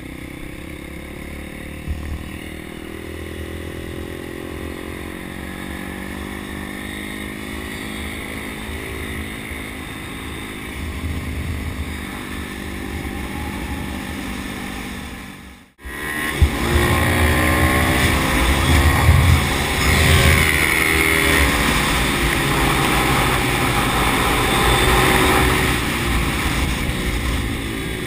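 Onboard sound of a pit bike engine, rising and falling in pitch as the rider accelerates and shifts through the gears, with wind noise. About halfway through, the sound cuts out for a moment, then returns louder with much more wind rush.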